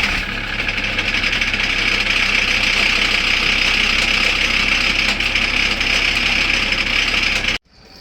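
Volkswagen Transporter T4's 2.5 TDI five-cylinder diesel engine running at idle, just after starting, with an even knocking whose source the owner cannot locate. The sound drops sharply near the end.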